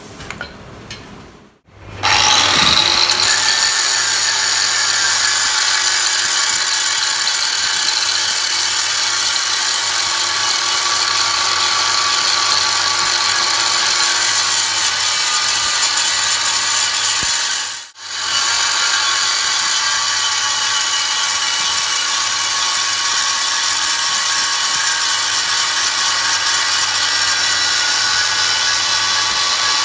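Electric angle grinder with an abrasive disc grinding the welded steel hub bore of a tractor wheel plate as the plate turns on a lathe. It makes a loud, steady grinding whine over the lathe motor's hum, starting about two seconds in, with a brief break near the middle.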